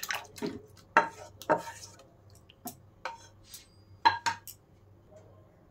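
A spatula scraping and knocking against a cooking pan and a glass bowl while potato curry is scraped out: about nine separate clinks and knocks, a few with a short ring, over the first four and a half seconds.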